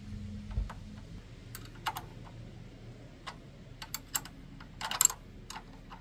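Irregular small clicks and light clinks of hand-tool work on motorcycle brake parts, with a brief loud clatter about five seconds in.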